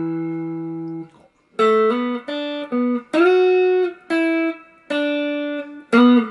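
Clean electric guitar (Stratocaster-style) played with a pick. A held low note rings until about a second in, then comes a phrase of single picked notes, some joined by short slides up a fret or two and back.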